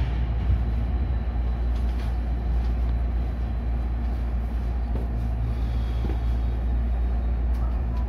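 Steady low hum and rumble heard from inside the cab of a Tokyo Metro 16000 series electric train alongside a station platform.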